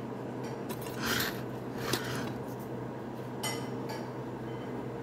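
Soft rustling and crinkling of thin samosa pastry sheets and a plastic glove being handled while folding, in a few brief rustles, over a steady low hum.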